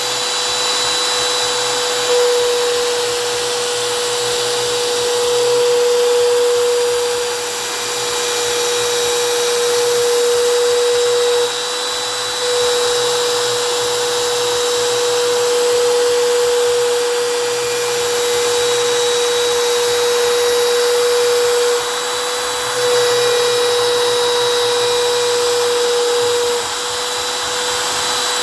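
CNC router spindle running with a steady high whine over a constant hiss while routing PVC. The level steps up and down several times.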